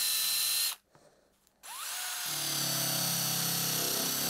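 Electric drill spinning a cloth buffing wheel loaded with polishing compound against an aluminium engine cover cap. It runs with a steady high whine, stops for about a second, then spins back up with a rising whine and runs on, with a lower buzz joining about two seconds in.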